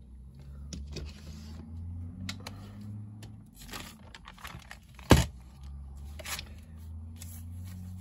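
Paper being handled and cut, with rustling and crinkling and a few sharp clicks, the loudest about five seconds in. A low steady hum runs underneath.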